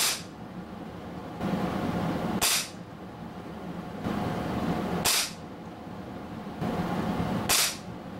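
Ignite Black Ops Tactical Sniper .177 gas-piston pellet rifle firing four sharp shots, about two and a half seconds apart.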